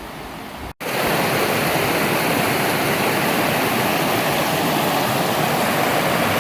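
Waterfall: the steady rush of falling water, beginning abruptly less than a second in. Before that, wind buffets the microphone.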